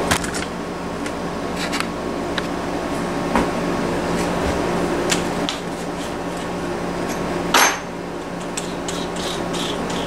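Scattered clicks and knocks of a cordless drill being handled while a bit is fitted into its chuck, with one louder clack about three quarters of the way in. A steady hum runs underneath.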